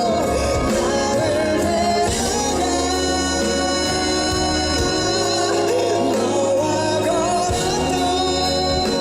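Live band music from a pop concert, with sustained keyboard-like chords and bass, and a singing voice held and wavering near the start and again near the end.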